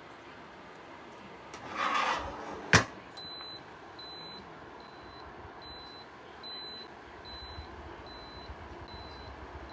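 A brief rustle and a sharp click, then a steady run of short, high-pitched electronic beeps, a little under two a second.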